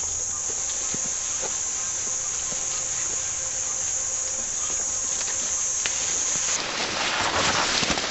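Crickets trilling steadily in a night chorus. About six and a half seconds in, the trill cuts off suddenly and a louder rustling, crackling noise takes over.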